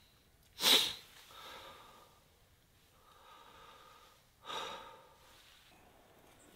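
A man's breathing: two sharp, noisy intakes of breath about four seconds apart, the first the louder, each followed by a softer breathy exhale.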